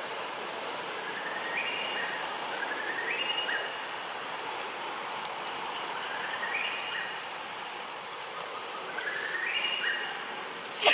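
Tropical forest ambience: a steady hum of insects, with a rising call repeated several times, each climbing in pitch over about a second and holding briefly at the top. A short sharp click comes at the very end.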